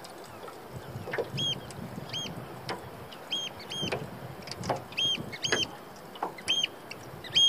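Eurasian oystercatcher calling: a string of short, shrill, ear-piercing piping notes, one every half second to a second, starting a little over a second in.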